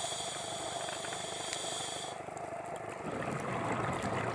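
Scuba regulator breathing, heard underwater: a high hiss that stops about two seconds in, then the louder gurgle of exhaled bubbles.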